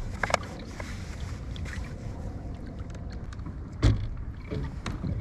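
Steady low wind and water noise around a kayak, with a few light clicks of handled fishing gear and one loud thump about four seconds in.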